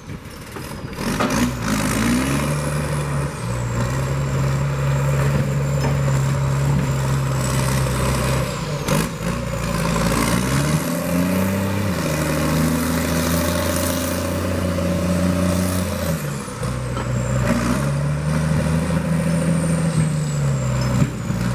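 Heavy diesel engine of logging machinery working under varying load, its pitch stepping up and down several times as it is revved and eased off. A thin high whine rises and falls along with it.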